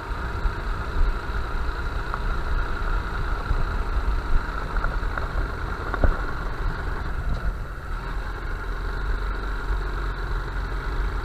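Honda Bros 160 motorcycle's single-cylinder engine running steadily while being ridden.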